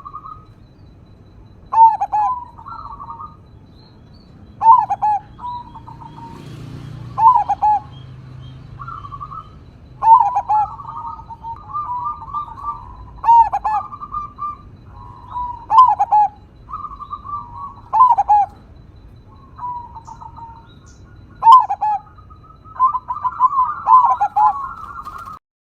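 Zebra dove (perkutut) cooing, its short rolling phrases repeating about every two to three seconds, with other soft notes between them and a busier run of notes near the end.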